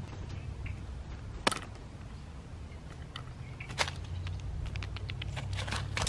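Outdoor ambience with a steady low rumble and two sharp clicks, then a quick run of clicks and rustles near the end as a blue jay lands on the wooden seed tray and picks through the loose seed.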